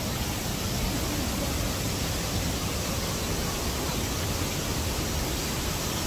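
Steady, even rushing of Ceunant Mawr waterfall's falling water, with no changes or separate events.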